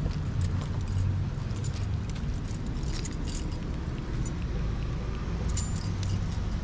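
Footsteps walking on brick pavers with irregular light jingling clicks, over a steady low rumble.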